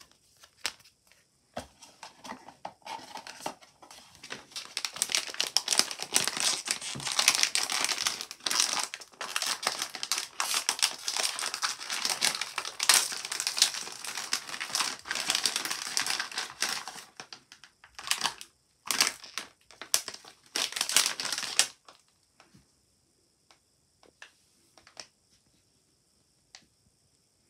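Plastic blind-box wrapping crinkling and crumpling in the hands as it is opened and a small vinyl figure is unwrapped. The rustling stops about three-quarters of the way through, after two short last bursts, leaving a few faint taps.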